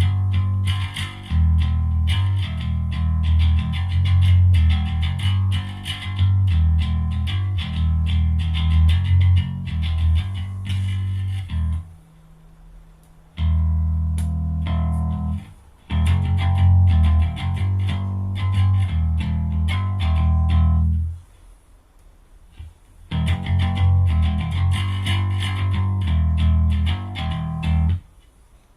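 Electric bass guitar playing riffs through an Ampeg SVT-style clone. The low, plucked notes come in phrases that break off briefly a few times, with longer gaps about halfway through and near the end.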